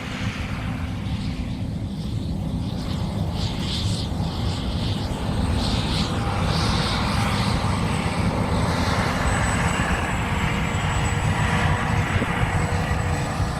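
A John Deere combine's engine running steadily with a low drone and a thin high whine, growing slowly louder as the machine comes closer.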